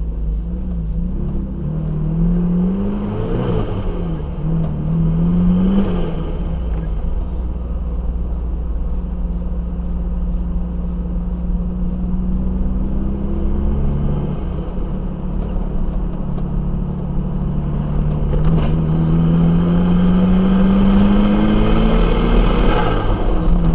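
Turbocharged Toyota Hilux engine pulling hard in several bursts, its pitch climbing and then dropping sharply each time the throttle is lifted, with turbo flutter at the lift-offs because there is no blow-off valve. The longest and loudest climb comes near the end.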